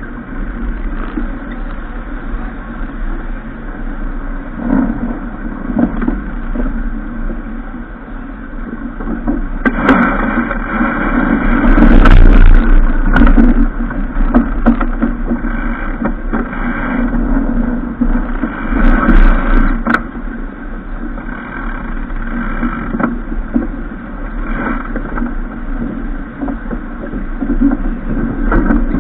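Steady rushing noise of a boat under way on the water, swelling louder about ten to fourteen seconds in and again near twenty.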